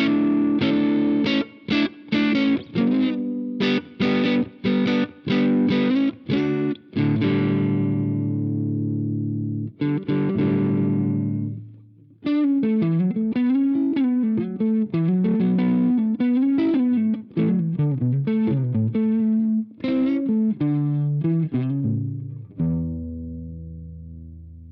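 Electric guitar played through an iSet Dumbler Dumble-style overdrive pedal, with a light, crunchy drive. Rhythmic chord stabs come first, then a held chord rings out. A single-note lead line with bends follows about halfway through, and it ends on a chord left to ring and fade.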